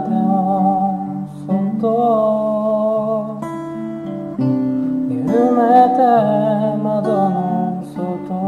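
Acoustic guitar played and sung to, with steady chords under a voice singing a melody line that comes and goes.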